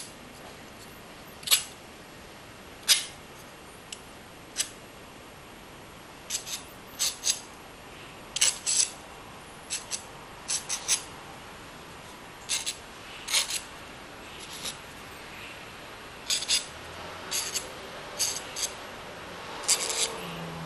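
Metal palette knife spreading and dabbing thick acrylic paint on a canvas: short scrapes at irregular intervals, often about a second apart, some in quick pairs or small clusters.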